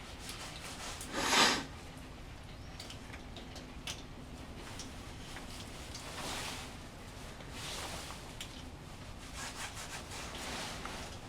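Rubbing and scraping of a cable being handled and worked by hand, with one loud swish about a second in, softer swishes later and a few small clicks.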